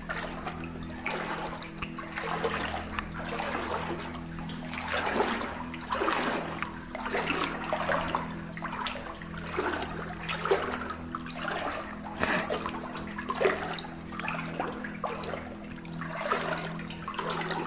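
Water sloshing and splashing about once a second as someone wades through water in a dark cave passage, over a steady low hum.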